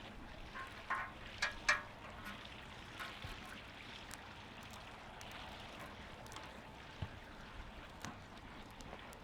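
Campfire burning with a steady hiss and scattered crackles, and a few louder, sharper sounds between one and two seconds in.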